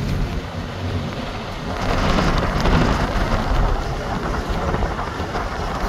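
Wind buffeting a phone microphone at a vehicle's open side window: a steady rumbling rush that grows louder about two seconds in.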